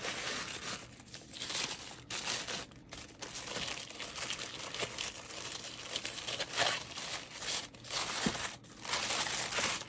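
Thin tissue paper crinkling and rustling in uneven bursts as hands unfold it to unwrap a planner.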